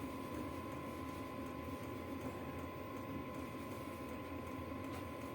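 Steady background hum with a thin constant whine and no distinct events.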